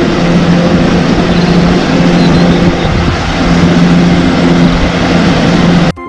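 Wheel loader's diesel engine running steadily while it pushes snow with a front plow blade. It makes a continuous drone with a low hum that fades in and out a few times.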